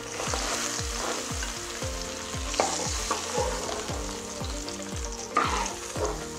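Hot oil sizzling in a frying pan as a metal spatula scrapes and lifts fried stuffed bitter gourds out, with a clatter about two and a half seconds in and another near the end. A steady low beat about twice a second runs underneath.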